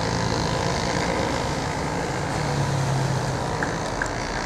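Street traffic: a motor vehicle's engine hum swells as it passes, about midway through. Two light clicks come near the end.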